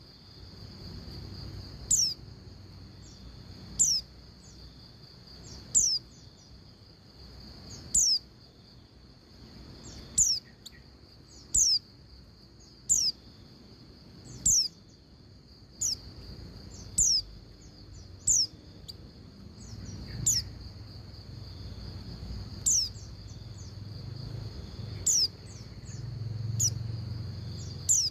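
Female white-eye (pleci) giving short, clear down-slurred call notes, one about every one and a half to two seconds, over a steady high drone. These are the calls used as a lure to get male white-eyes singing.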